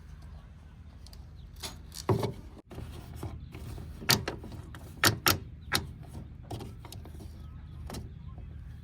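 A heavy diesel engine running steadily, with a handful of sharp metallic knocks and clanks over it, the loudest about four and five seconds in. The sound cuts out for an instant about two and a half seconds in.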